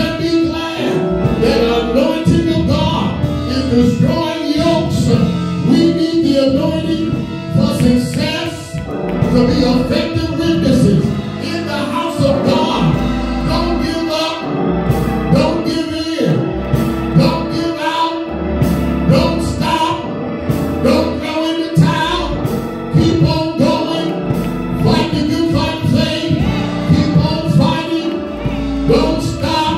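Gospel music with singing over a band, with deep bass notes.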